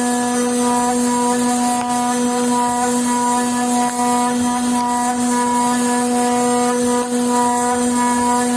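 Ultrasonic machining unit running with a steady electrical hum over a constant high hiss.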